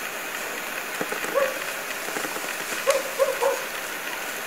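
Koklass pheasant giving short, low clucking notes, one about a second and a half in, then three in quick succession near the end, over a steady background hiss.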